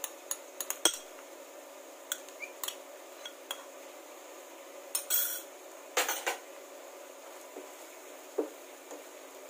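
A spoon and a plastic spatula clicking and scraping against a non-stick frying pan as cream is scraped off and stirred into mushrooms. Quick taps in the first second, scattered clicks after, and louder scrapes about five and six seconds in.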